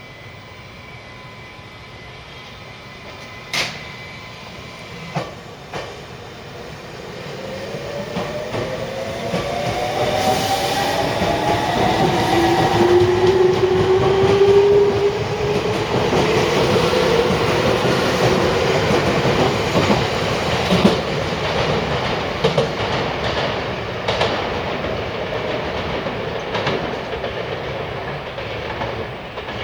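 Senboku Rapid Railway 7000 series electric train departing: a few clunks, then the traction motors' whine rising in pitch as it gathers speed. The cars go past, wheels clacking over the rail joints, and the noise slowly fades.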